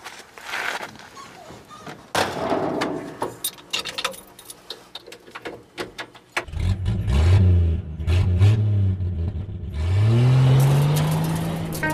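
A motorcycle engine revving in several blips, its pitch rising and falling, then a long rise to a held higher rev near the end. Before the engine comes in, about halfway through, there is an uneven stretch of clicks and noise.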